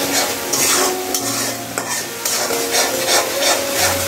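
Metal spatula stirring and scraping chopped onions and garlic paste frying in hot oil in an aluminium karai: a steady sizzle with repeated scraping strokes as the garlic is fried through.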